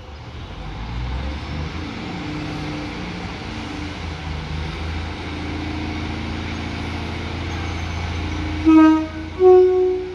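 A train running with its engine droning low and steady. Near the end it sounds its two-tone horn: a short lower note, then a longer higher one.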